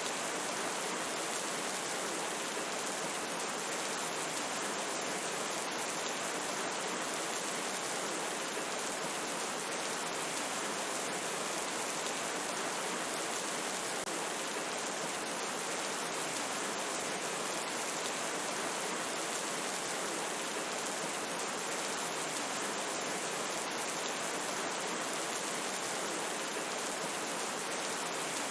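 Steady, even rain: a dense hiss of falling drops with no change in strength and no thunder.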